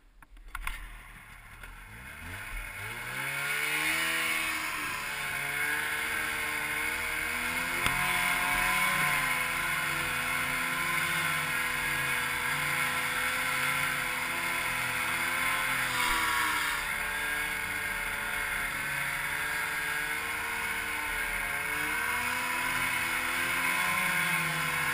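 Snowmobile engine pulling away and running along a snowy trail while towing a loaded sleigh. The engine revs up from about a second in, then holds speed with its pitch rising and falling under the throttle.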